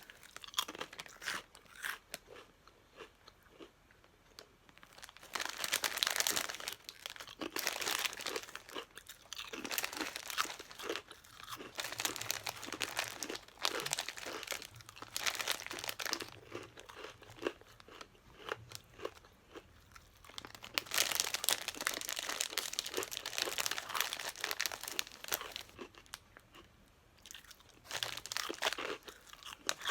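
Crunchy turtle crackers being bitten and chewed, in spells of crunching with short pauses between them.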